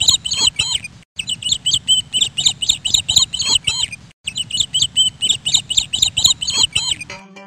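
Looped intro music made of rapid bird-like chirps over a steady low beat. The same short phrase repeats, cut off twice by brief gaps. It ends with a short low hum near the end.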